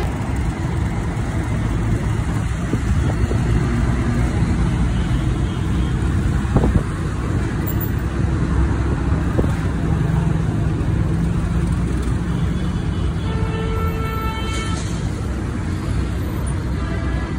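Steady low rumble of car engines and road traffic. Between about 13 and 15 seconds in, a short horn-like tone with several overtones sounds over it.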